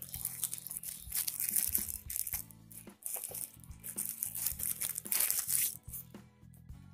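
Clear plastic bag crinkling and rustling in irregular bursts as hands pull it open, loudest about a second in and again around five seconds in, over steady background music.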